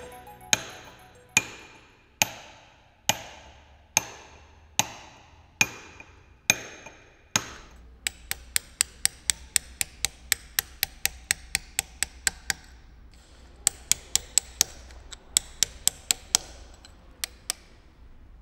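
A hammer striking a steel chisel into stone. Slow, ringing blows come about one a second, then from about eight seconds in there are quicker runs of about three blows a second, thinning out near the end.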